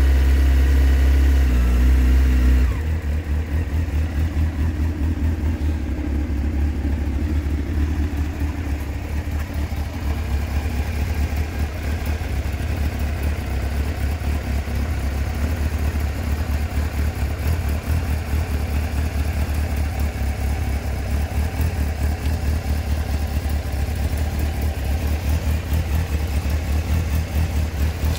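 Honda CBF 600 N's inline-four engine running at raised revs, then dropping to a steady idle about three seconds in, with an even pulsing beat.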